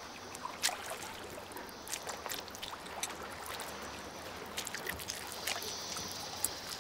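Water lapping and trickling around a giant otter in a river, with scattered short sharp clicks as it chews a piranha.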